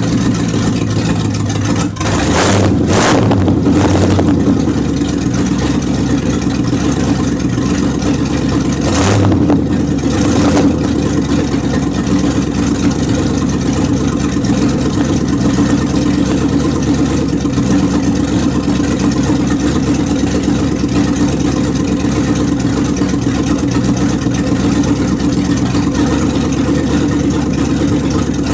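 Car engine running steadily while warming up from a cold start, with a couple of brief stronger spells around two and nine seconds in.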